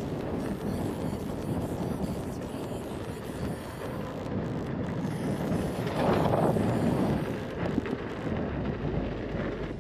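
Wind buffeting the microphone and tyre noise while riding an electric unicycle on a dirt trail, a steady rough rush with a louder stretch about six seconds in, thinning out near the end.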